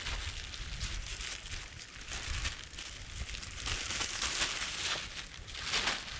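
Dry rustling and crackling that swells and fades, with a low rumble underneath.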